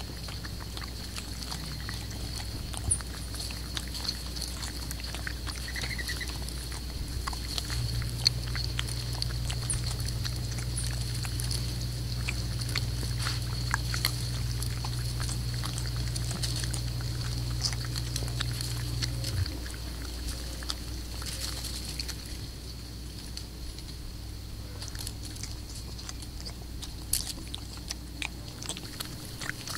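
Black bear feeding at a wooden feeding platform: scattered clicks and knocks of it handling and eating, over a steady low hum.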